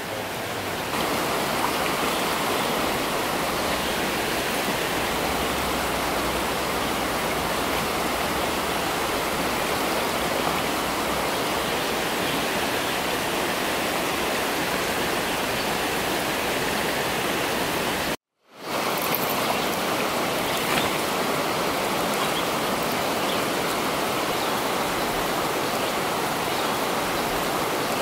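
Shallow mountain stream flowing, a steady rush of water. It breaks off once in a brief gap of silence about two-thirds of the way through.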